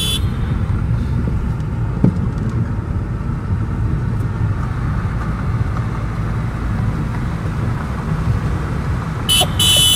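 Steady low rumble of a car on the road. About nine seconds in, a shrill horn-like beep starts and lasts about a second.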